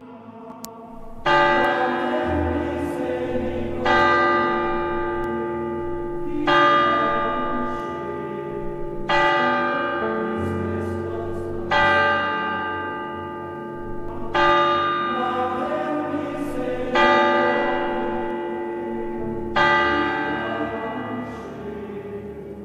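Church bell tolling for the blessing with the monstrance, struck eight times about every two and a half seconds, each stroke ringing and dying away. Underneath, soft sustained choir-like music holds a steady drone with slowly changing low notes.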